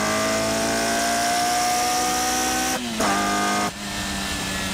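Car engine pulling hard under acceleration, its pitch rising steadily, then breaking twice around three seconds in as it shifts gear, and running on at a steady lower pitch after that.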